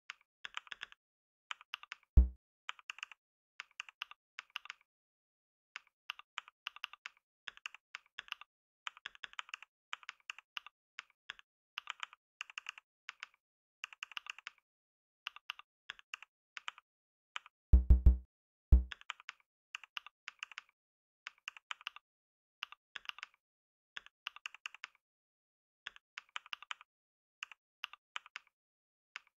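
Computer keyboard typing: quick runs of key clicks broken by short pauses, as words are typed into a typing test. A few heavier low thuds stand out, one about two seconds in and a cluster around eighteen seconds.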